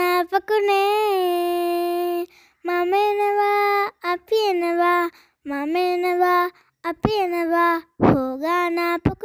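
A child's voice singing alone, holding long notes in about six short phrases with brief silent gaps between them.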